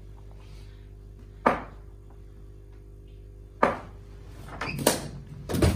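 Sharp knocks from an indoor cricket game, the ball bouncing and being struck: a loud crack about a second and a half in, another near three and a half seconds, and several more close together near the end.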